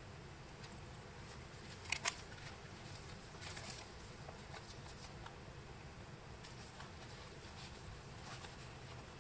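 Faint handling sounds from gloved hands opening the plastic screw cap of a small bottle of panel line accent paint: two sharp clicks about two seconds in, then a soft rustle. Light scattered ticks follow as the bottle and its brush are handled.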